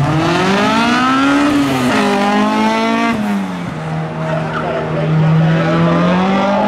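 Cars' engines accelerating hard off a drag-race launch. The pitch rises, then drops at upshifts about two and three seconds in.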